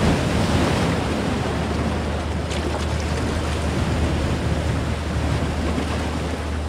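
Sea waves breaking and washing over shore rocks, loudest about a second in.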